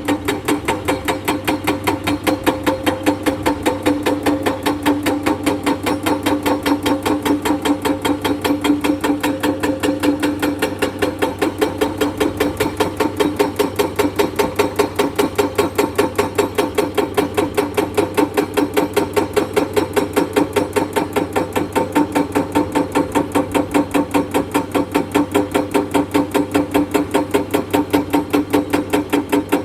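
Excavator-mounted hydraulic rock breaker hammering limestone in a fast, even rhythm of blows, over the steady hum of the excavator's engine.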